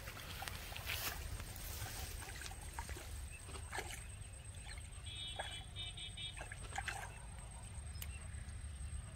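Handling noises as a caught tilapia is worked off the hook by hand: irregular clicks and rustles of grass and fingers over a steady low rumble of wind on the microphone. About five seconds in comes a brief run of high, evenly pulsed tones.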